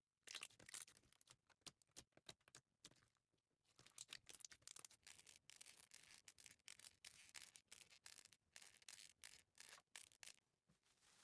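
Slime being worked by hand, giving faint crackling and popping clicks. The clicks are scattered at first and turn into a dense crackle from about four seconds in.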